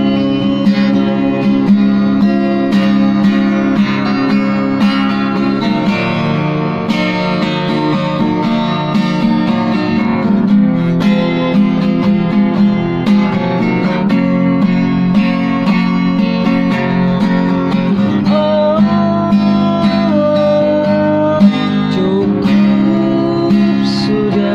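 Acoustic guitar being played continuously, chords strummed and picked in an instrumental passage of a song.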